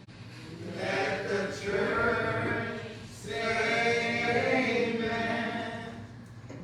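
Voices singing together in a church service, in slow, long-held phrases: two phrases with a short break about three seconds in.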